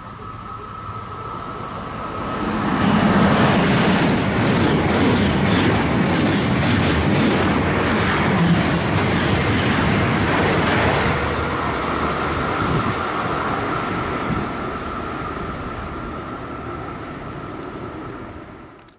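ICE high-speed electric train passing at speed: a rush of wheel and air noise that builds over the first three seconds, stays loud for about eight seconds, then fades as the train draws away, over a steady high whine. The sound cuts off abruptly at the very end.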